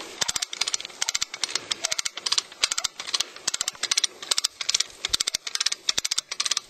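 Hand-cranked 2-ton come-along ratchet clicking in quick runs, about two a second, as the handle is pumped. It is winching under load against a tree-anchored cable to lift a bogged track vehicle's side.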